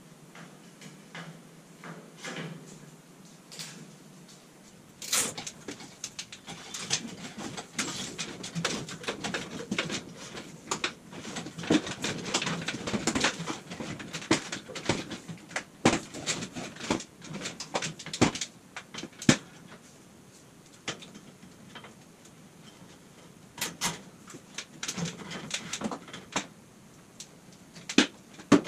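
Hand work on metal and plastic parts: irregular clicks, taps and rattles, sparse at first, busy for about a quarter of a minute from roughly five seconds in, then scattered again.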